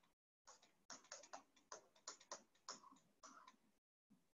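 Near silence with faint, irregular taps of a stylus writing on a tablet screen.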